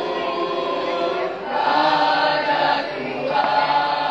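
Mixed school choir of boys and girls singing together in long held notes, with short breaks between phrases about a second and a half and three seconds in.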